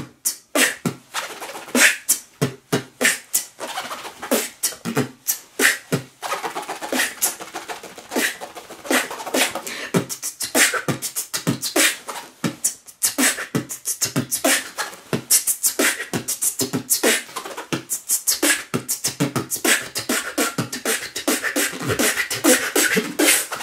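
Vocal beatboxing mixed with fast zipper scratches: the zipper of a quilted vest is rubbed up and down in rhythm to imitate DJ scratching over the mouth-made beat.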